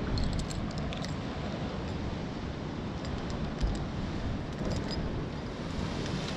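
Wind buffeting the microphone over a steady wash of coastal surf, with scattered light clicks and rustles and one low thump about three and a half seconds in.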